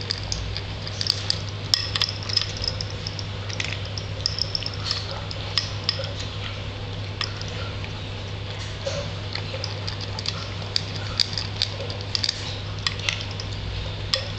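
Himalayan Persian cat eating dry kibble from a bowl: irregular crisp crunching clicks of chewing and of kibble knocking against the bowl, over a steady low hum.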